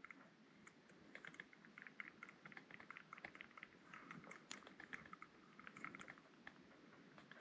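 Near silence with faint, irregular light clicks from a fishing reel being cranked as the line is retrieved.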